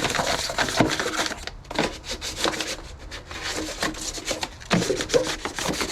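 1000-grit sandpaper on a sanding tool scuffing the painted sheet metal of a car's engine bay: uneven scratchy rubbing strokes.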